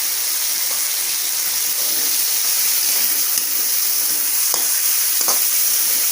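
Chopped tomatoes sizzling as they fry in hot oil with spice paste (masala), a steady hiss. A spoon or spatula clicks twice, about four and a half and five seconds in.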